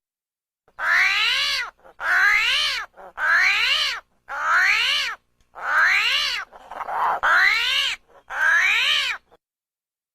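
Prehistoric-beast scream sound effect: a shrill, pitched animal call repeated seven times, each about a second long and rising then falling in pitch, with short pauses between.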